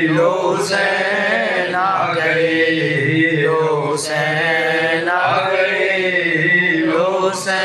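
A man singing devotional Urdu verses unaccompanied into a microphone, drawing out long, wavering held notes, with a new phrase starting about every three and a half seconds.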